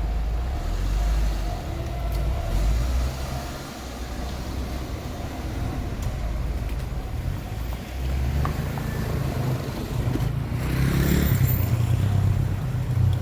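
Street traffic: cars running past with a steady low rumble, one passing close near the end.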